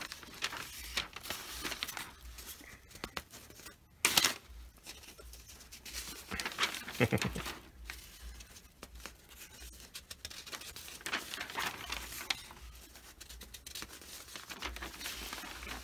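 A large sheet of newsprint rustling and crinkling as it is unfolded and turned, in irregular bursts, the sharpest about four seconds in.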